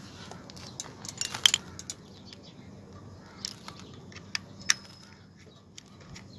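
Scattered small clicks and clinks of a metal diecast toy car and hand tools being handled, a screwdriver working at the screws in the toy's base; the sharpest clink comes about a second and a half in.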